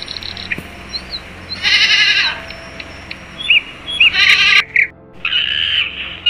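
Farm animal bleating in two loud, wavering cries and a longer one near the end, with short bird chirps between them. Background music plays throughout.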